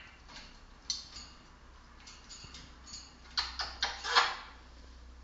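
Pet parrot making short sharp sounds: a single click about a second in, a few faint ticks, then a quick run of four short noisy calls near the end.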